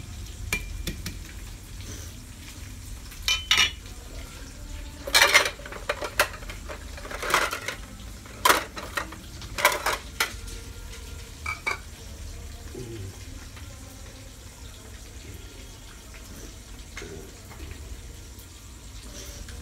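Cleaver knocking on a plastic cutting board as garlic cloves are crushed and chopped: about ten sharp, irregular knocks between about three and twelve seconds in, then only soft handling sounds.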